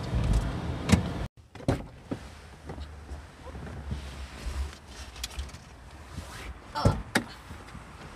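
Knocks, clicks and rustling as a person climbs out of a van's passenger seat through the open door, over a low rumble. The sharpest knocks come about a second in and again near the end.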